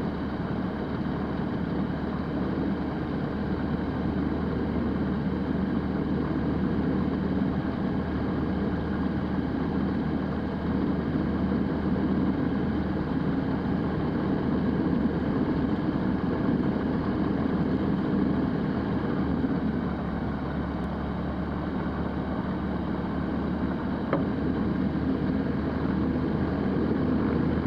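The Rotax 912 flat-four engine and propeller of a Zenith STOL CH 701 light aircraft running at low taxi power, a steady drone that changes little in level.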